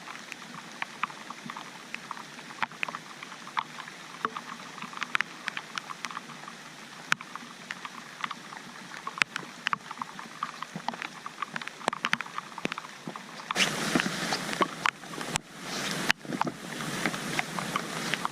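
Rain pattering: a steady hiss dotted with many irregular drop ticks, turning into a louder, fuller rushing noise about thirteen seconds in.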